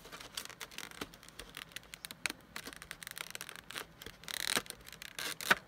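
Fingers handling trading cards and foil booster packs in an open metal tin: light rustling, crinkling and small clicks, with a louder rustle about four and a half seconds in and a sharp click just before the end.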